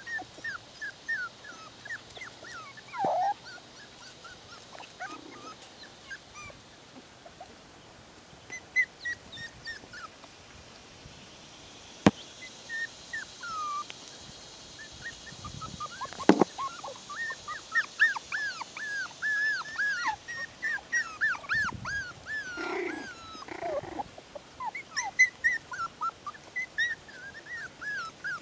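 Six-week-old bichon-poodle puppies whimpering and yipping: many short, high-pitched squeaks, thickest in the second half. Two sharp knocks stand out near the middle.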